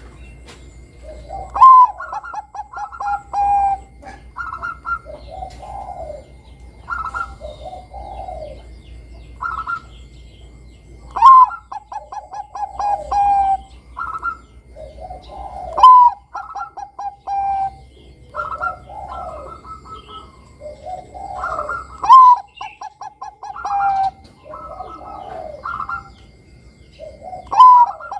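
Zebra dove (perkutut bangkok) singing its cooing song. Five times the phrase opens with a loud note and runs into a fast string of short staccato coos, several seconds apart, with softer coos in between.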